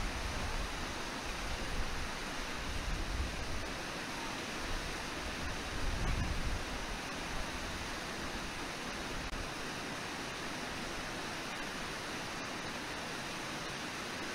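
Steady rush of the Brooks River's flowing water and falls, picked up by the live-cam microphone, with some low rumbling in the first several seconds.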